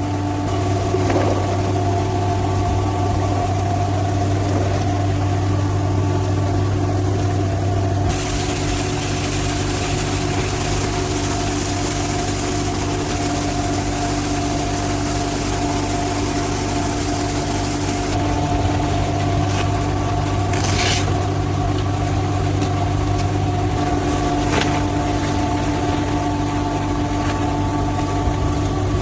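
Cardboard-making factory machinery running with a steady hum and whine. A broad hiss comes in about eight seconds in and drops back about ten seconds later, with another short hiss a few seconds after that.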